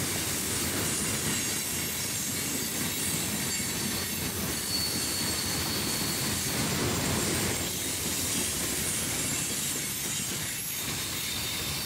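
Loaded limestone hopper cars rolling past, their steel wheels rumbling and clicking over the rails, with a thin high wheel squeal about halfway through.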